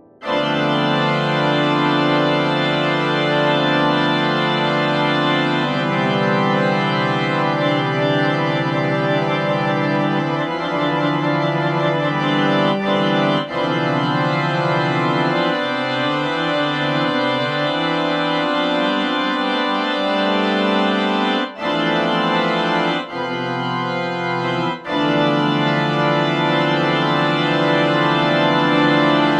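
Organ playing held chords in full, rich tones, moving to a new chord every few seconds. About two-thirds of the way through there are a few brief breaks between chords.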